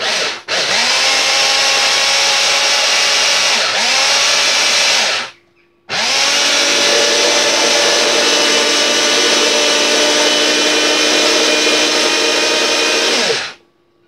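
Electric mini chopper (motor unit on a plastic bowl) running, blending a liquid marinade. A brief pulse at the start, a steady run of about five seconds, a short stop, then a second run of about seven seconds that winds down near the end.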